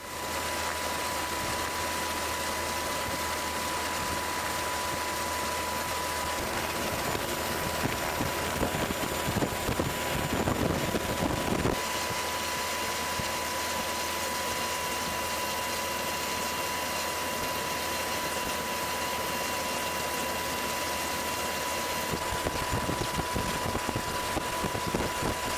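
Steady engine drone and wind noise of the aircraft filming from the air, with a constant high whine running through it. There is a stretch of louder, rougher buffeting about ten seconds in.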